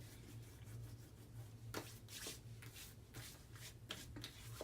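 Faint rubbing and patting of hands applying aftershave splash to the face: a scattering of light taps and rustles over a low steady hum.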